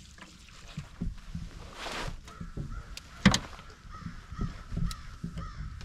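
A crow cawing several times in a quick run, faint behind knocks from handling in the boat, with one sharp click about three seconds in.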